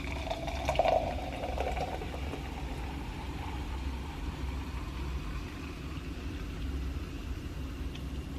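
Steady low mechanical hum, with a brief brighter sound about a second in.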